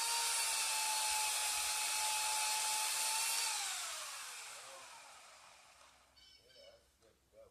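Small electric power tool motor running at full speed with a steady whine, then released about three and a half seconds in, its pitch falling as it coasts down and fades over the next few seconds.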